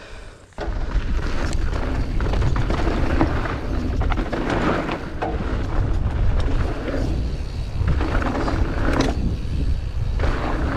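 Wind buffeting the microphone with a low rumble, mixed with tyre and drivetrain noise from a Deviate Highlander trail bike rolling fast over dirt, with scattered clicks and rattles. It starts suddenly about half a second in.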